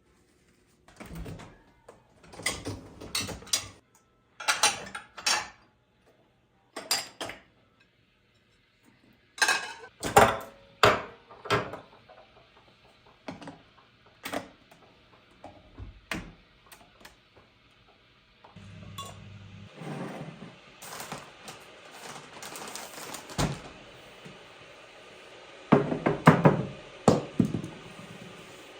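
Dishes and cutlery being handled in a kitchen: a string of clinks, clatters and knocks as items are picked up and set down. About two-thirds of the way in, a steady hiss starts underneath.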